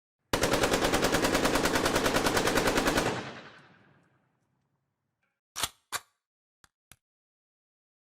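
AK-47 assault rifle firing a burst on full auto, about ten shots a second for nearly three seconds, then dying away in a trailing echo. About two seconds later come two sharp clicks and two faint ticks.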